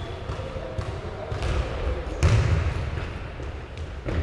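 Basketball bouncing on a hardwood gym floor, with players' footsteps: a handful of separate thumps, the loudest about two seconds in.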